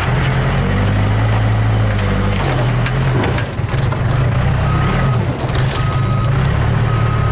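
Old loader backhoe's engine running steadily as the machine is driven, heard from the operator's seat, its pitch shifting about two and a half seconds in. A backup alarm beeps three times near the end.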